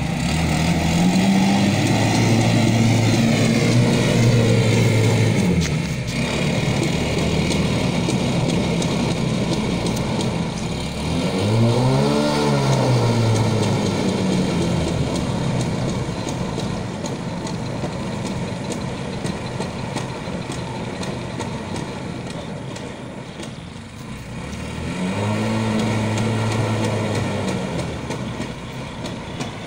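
Engine of a homemade amphibious flood-rescue motorbike running as it drives out through water, revving up at the start, then surging twice more, about twelve seconds in and near the end, the pitch rising and falling each time.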